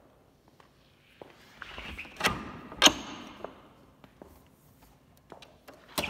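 A wooden door being moved and shut: a rush of movement with two sharp knocks a little over two seconds in, then a few more clicks and knocks near the end.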